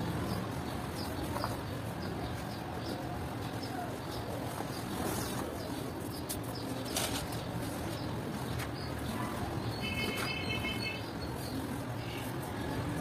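Soft, dusty cement chunks being crumbled and snapped, a steady crackling crunch with a few sharper snaps around the middle, sped up to double speed.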